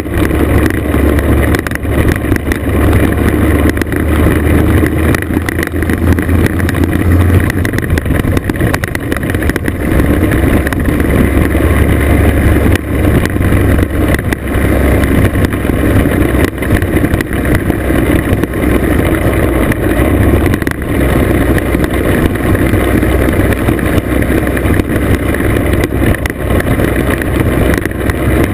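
Classic two-stroke scooter engine running steadily at riding speed, heard from on board. Wind buffets the microphone, and the tyres rattle over loose gravel with many small knocks.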